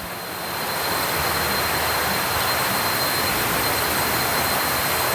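Heavy rain falling through forest: a steady hiss that swells over the first second and then holds, with a thin steady high tone running through it.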